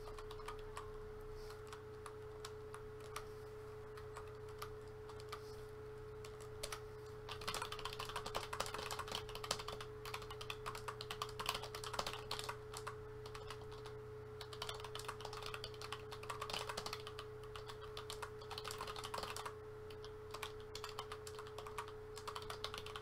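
Typing on a computer keyboard: scattered keystrokes at first, then fast, steady typing from about seven seconds in. A faint steady hum runs underneath.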